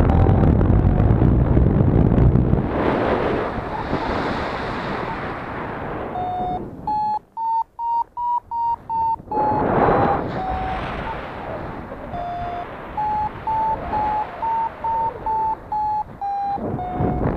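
Homemade Arduino acoustic variometer beeping in flight on a paraglider. It gives two runs of short electronic beeps, a few a second, each climbing in pitch and then dropping back: the signal of the glider climbing in lift, with the thermal sniffer set to beep at even the slightest uplift. Wind rushes over the microphone, loudest at the start and again about ten seconds in.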